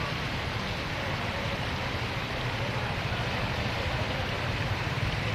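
Steady low rumble of a bus engine running, under a constant hiss, with no change in pitch or level.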